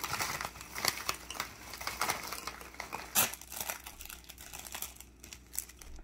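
Foil-lined snack bag crinkling as potato snack sticks are shaken out and clatter into a ceramic bowl, with one sharper clatter about three seconds in. The rustling thins out near the end.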